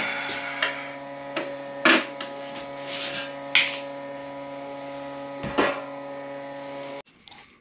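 A steady electrical hum of several even tones, with scattered clicks and sharp knocks as a screwdriver and a loose sheet-metal lathe guard are handled and set down; the hum cuts off abruptly near the end.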